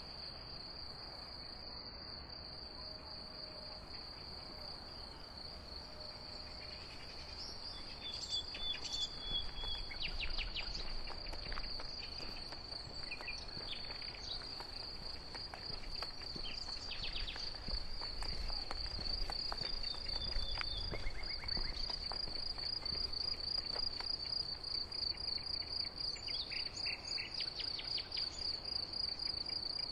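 Crickets trilling in an unbroken high, rapidly pulsed note, with short bird calls and chirps breaking in from about eight seconds in.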